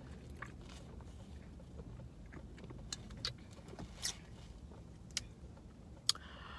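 Scattered faint clicks and smacks of someone chewing food, over the steady low hum of a car's interior.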